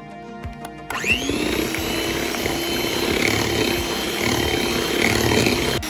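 Electric mixer switching on about a second in, spinning up and running steadily at speed as its twin beaters work flour into cake batter.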